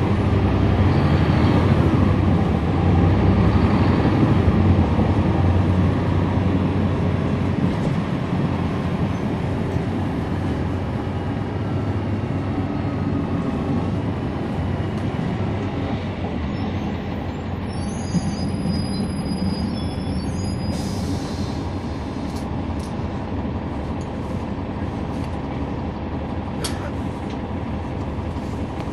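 Cummins ISL9 inline-six diesel engine of a NABI 40-SFW transit bus, heard from on board. It works hard and is loudest over the first few seconds, then eases off to a steadier, quieter running sound.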